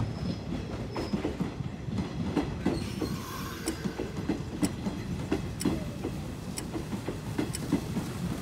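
A train running along the track: a steady low rumble with the clacking of wheels on the rails, and a sharp tick about once a second.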